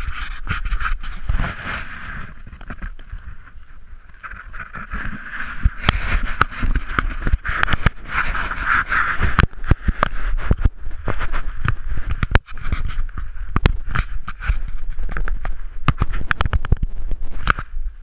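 Footsteps crunching on dry grass and a dirt trail, many irregular steps, over a low rumble of wind and handling noise on a GoPro's microphone.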